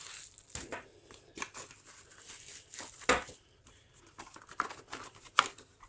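Hands pulling open a small cardboard packaging box: cardboard scraping and rustling, with a few sharp handling clicks. The loudest is about three seconds in, and another comes near the end.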